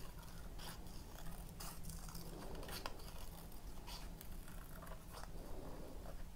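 Small scissors snipping through a square of grey paper, cutting an oval out: a run of faint, irregularly spaced snips.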